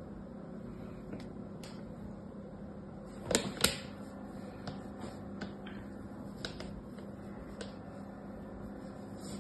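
Steady low hum of room noise with a scatter of light clicks and taps: two sharp, louder clicks about three and a half seconds in, then several fainter ones over the next few seconds.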